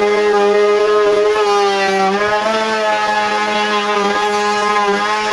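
Electric woodworking power tool motor running at a steady pitch, a loud sustained hum with a clear tone.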